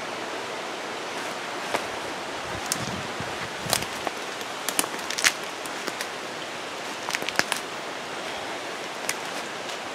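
Steady rush of a rain-swollen mountain creek flowing hard. Over it come scattered rustles and snaps of wet leaves and twigs, with a few low thuds, as someone pushes through dense undergrowth.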